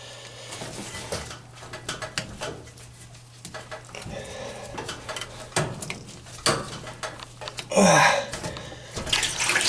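Scattered clicks and clatter of hands and tools working loose the plastic drain pump and hose of a clogged washing machine, over a steady low hum.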